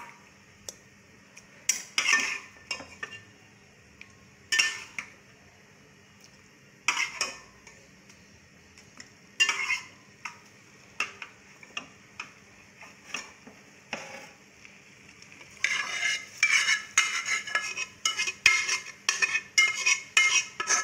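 A metal spatula scraping and clanking against a metal cooking pot as cooked mutton is spooned onto fried onions and tomatoes. Single scrapes come every couple of seconds, then a fast run of stirring clatter over the last five seconds.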